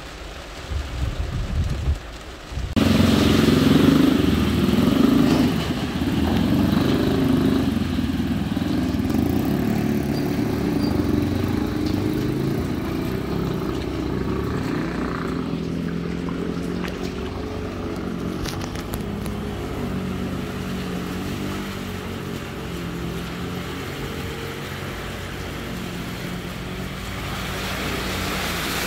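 Motorcycle and car engines running on a flooded street. A motor scooter rides through the water toward the camera, getting louder near the end.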